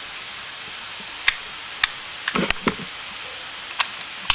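Sharp metallic clicks and clacks from a CZ 40 P pistol being handled as it is taken apart, its takedown pin out and the slide working forward off the frame. Five or six single clicks at uneven spacing, with a short cluster a little past halfway.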